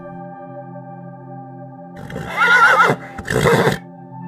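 A horse whinnying: a loud, wavering call about two seconds in, then a shorter second burst right after, over steady background music.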